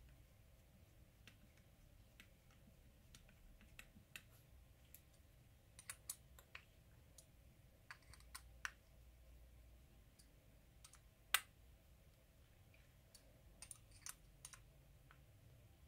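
Faint, irregular clicks and ticks of a hex driver working the small case screws of a Traxxas X-Maxx center differential as they are tightened, with one sharper click about eleven seconds in.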